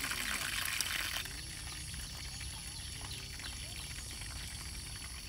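Running or pouring water that stops abruptly about a second in, leaving a low, steady outdoor background.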